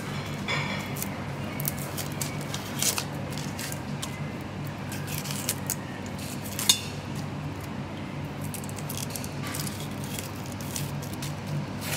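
Dry, papery onion skin crackling as it is peeled off by hand, with light clicks as pieces of skin drop into a stainless steel bowl and one sharper click a little past halfway. A steady low hum runs underneath.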